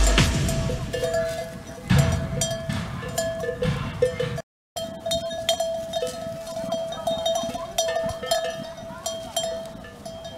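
Bells worn by a grazing flock of sheep clanking and tinkling irregularly, with several bells ringing at once. A low rumble sits under the start, and the sound drops out completely for a moment nearly halfway through.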